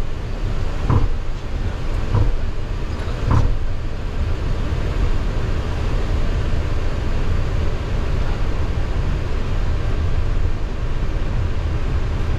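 Steady low rumble in a Boeing 737-800 cockpit while taxiing, its CFM56-7B engines at idle, with three soft thumps about a second apart in the first few seconds.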